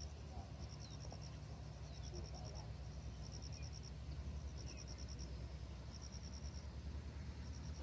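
Insects trilling in the grass: a high, pulsing trill that comes in runs of about half a second to a second, repeating every second or so, over a low steady rumble.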